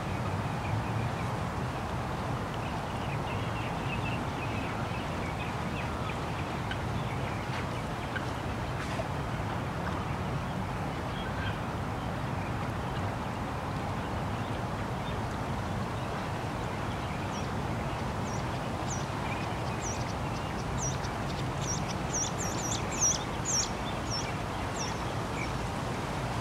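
Steady low hum of distant traffic with birds calling over it: a few faint calls, then from about two-thirds of the way in a quick run of short, high, falling chirps that is loudest near the end.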